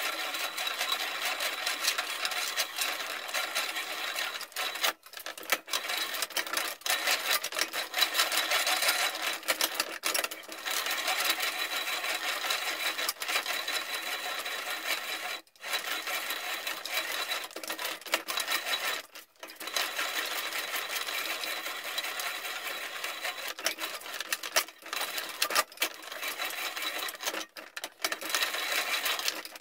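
A reamer cutting through the bore of a steel rifle barrel as it breaks through at the muzzle: a steady metallic rasp with a faint high whine, stopping briefly about four times.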